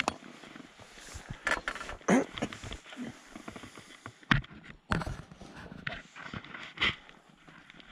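Irregular footsteps and scuffs on stony dirt ground, mixed with a few sharper knocks and clicks. The loudest knocks come near the middle and about seven seconds in.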